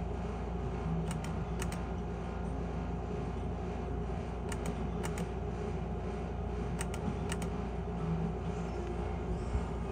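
Sharp plastic clicks, mostly in quick pairs and heard about six times, from the buttons of a Pennsylvania Skills game machine being pressed to play and stop the reels, over a steady electrical hum.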